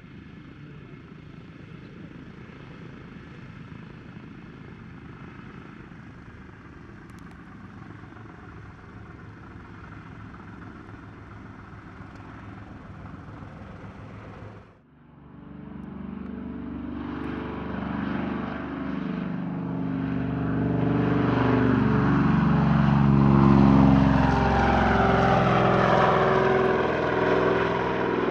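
Twin Pratt & Whitney R-2000 radial engines and propellers of a de Havilland Canada DHC-4 Caribou running steadily at low power while taxiing. About halfway through, the sound cuts to the Caribou flying past: the engines and propellers grow much louder, with the pitch sliding, and peak near the end.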